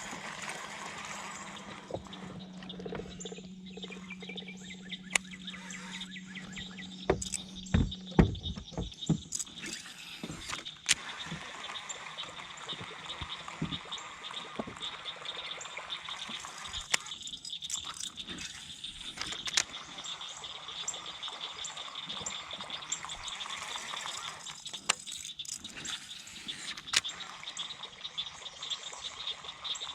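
Steady high-pitched chorus of insects and birds, with scattered sharp clicks and knocks, the loudest a cluster about seven to eight seconds in. A low steady hum runs under the first eight seconds or so, then stops.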